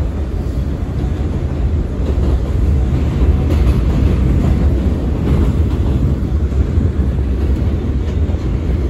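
R179 subway car heard from inside as it runs on elevated track, pulling away from a station: a steady low rumble of wheels on rail and running gear, getting a little louder about three seconds in.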